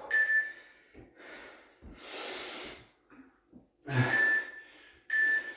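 A man breathing hard between interval-training exercises, a series of heavy, noisy breaths as he recovers from the exertion. Short, steady high beeps from an interval timer sound near the start and twice about a second apart near the end.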